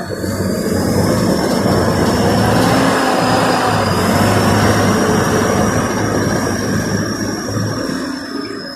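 Thai Seng 'Chao Phayu' combine harvester running, engine and harvesting mechanisms working together, coming up in level over the first second. A high whine rises a little, then holds steady above the machine noise.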